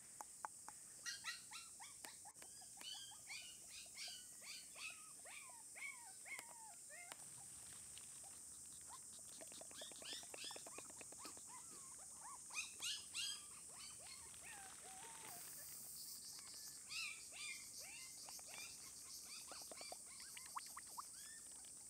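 Four-week-old Shiba Inu puppy whimpering and squeaking in strings of short, high-pitched calls, coming in three bouts with pauses between, over a steady high hiss.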